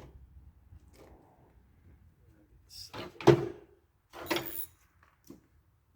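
Two short clanks of hard parts or tools being handled during a riding-mower teardown, about three seconds in and again a second later, the first with a brief ring, amid a few faint clicks.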